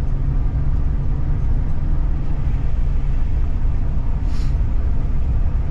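Old Ford truck driving, its engine and road noise making a steady low rumble heard from inside the cab, on a test drive after a fresh oil change with the truck running without trouble.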